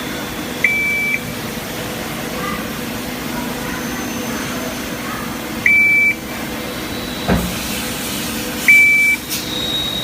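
Mizuno alkaline water ionizer beeping: three short, steady, high beeps a few seconds apart over a steady background hum, with a single knock about two-thirds of the way through.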